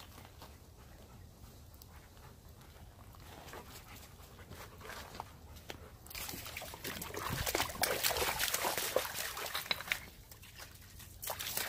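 Dogs moving close by, with wet, sloshy crunching. The sound is faint at first, builds to a busy stretch of close-up dog noise about six seconds in, and eases off near the end.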